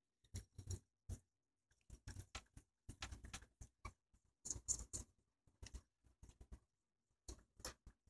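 Faint, irregular scratchy rubbing of an SC fiber optic connector in a polishing puck being worked in circles over 1-micron polishing film on a rubber pad. This is the final polish of the connector's zirconia ceramic ferrule end face.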